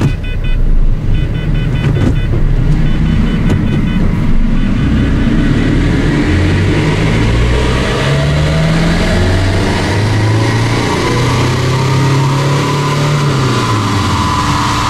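A 1.5 dCi four-cylinder turbodiesel pulls under load on a chassis dynamometer, its pitch rising steadily, then drops off near the end as the run finishes. The power box is on its standard program 3. Three short runs of electronic beeps sound in the first few seconds.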